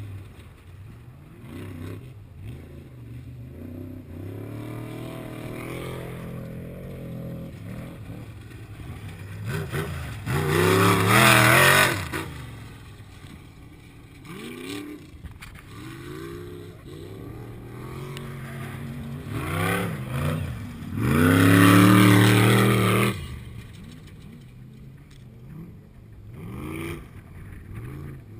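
Off-road race vehicles' engines revving hard as they race past on a dirt course, the engine notes rising and falling with gear changes and throttle. Two loud pass-bys stand out, one about ten seconds in and another after about twenty-one seconds, with quieter engines in the distance between.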